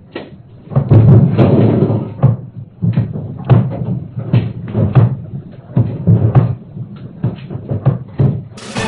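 Room shaken by an earthquake, heard through a security camera's microphone: a low rumble with many knocks and bangs as metal cans fall and clatter across the hard floor.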